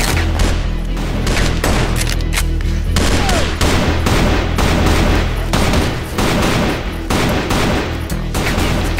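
A rapid exchange of gunfire, many irregular shots in quick succession, over a film score with a steady bass line.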